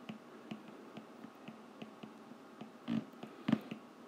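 Faint ticks of a stylus tapping on a tablet's glass screen while handwriting, about three a second, with two louder short knocks about three seconds in.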